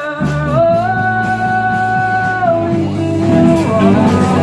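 Rock band playing a song, guitar and bass over a steady beat, with a long held melodic note that slides up about half a second in and holds for about two seconds.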